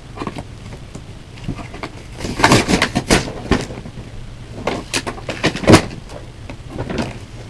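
Cardboard toy box and its plastic packaging rustling and scraping as the contents are worked loose and pulled out, in two bursts of crackling a few seconds apart.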